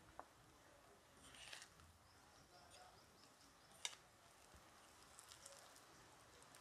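Near silence with faint scraping of a spatula stirring flour into a thick batter in a ceramic bowl, and two sharp clicks of the utensil against the bowl, the second and louder just under four seconds in.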